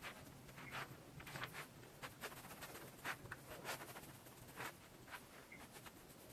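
Faint, irregular soft brushing and rubbing strokes: a makeup brush blending contour stick into the skin.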